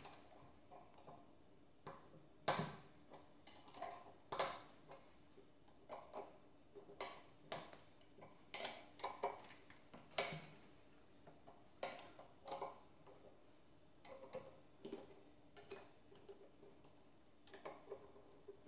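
Irregular metallic clicks, taps and clinks of a hex key and hands working bolts on a homemade five-cylinder radial engine during disassembly, with some sharper knocks now and then.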